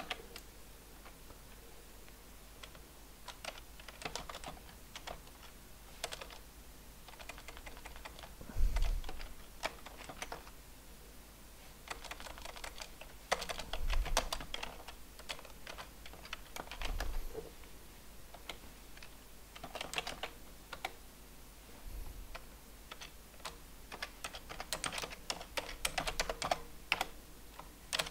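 Computer keyboard being typed on in short bursts of keystrokes with pauses between them. A few low thumps come between the bursts, the loudest about nine seconds in.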